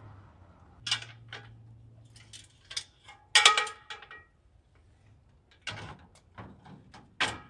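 A string of separate clicks and knocks, like things being handled, with a brief low hum in the first seconds and a louder squeaky knock about three and a half seconds in.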